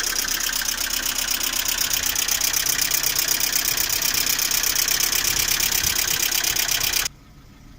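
Lada Priora's 21126 1.6-litre 16-valve engine idling with a rapid, even ticking from its hydraulic valve lifters. The owner has not cured this lifter knock with oil changes or a new oil pickup. The sound cuts off abruptly about seven seconds in.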